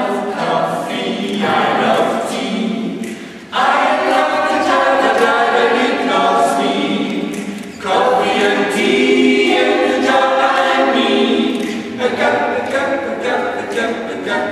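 Mixed a cappella vocal group of men's and women's voices singing together without instruments, in phrases that break off and come back in sharply about three and a half and eight seconds in.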